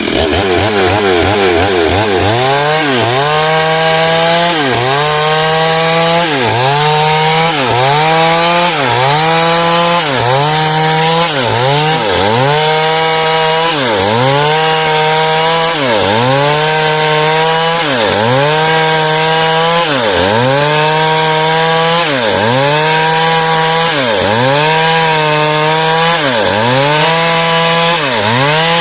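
Two-stroke chainsaw running at full throttle while sawing through timber. The engine pitch dips under load and recovers, over and over, about every one and a half seconds, after it revs up in the first second or two.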